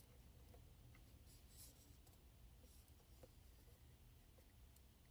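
Near silence: room tone with a few faint, scattered light clicks and soft rustles.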